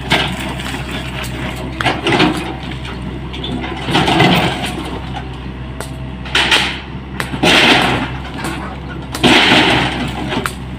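Hyundai hydraulic excavator's diesel engine running steadily under load while its bucket breaks down a masonry wall. Several loud crashes of concrete and brick falling come every second or two.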